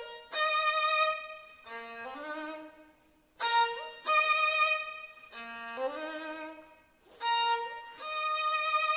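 Music: a solo violin plays a short phrase three times, a held note with vibrato followed by lower notes that slide upward.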